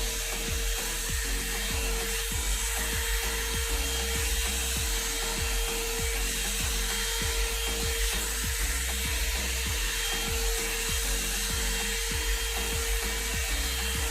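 One-step hair dryer and styler (hot-air brush) running steadily, blowing air with an even hiss over a constant motor whine.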